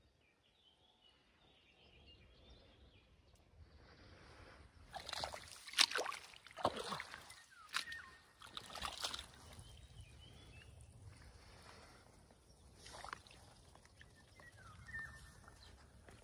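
Outdoor wetland ambience with a low wind rumble and a few faint bird chirps. From about a third of the way in, for some four seconds, a run of irregular crunching, rustling steps on dry soil and plant stems, with one more near the end.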